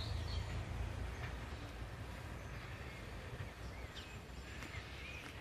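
Diesel railbus engine rumbling low and fading as it pulls away down the line, with a few faint bird chirps near the end.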